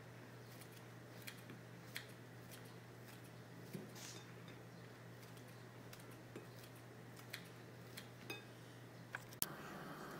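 Kitchen scissors snipping through crisp fried urad dal fritters, faint sharp snips at irregular intervals of roughly a second, over a steady low hum.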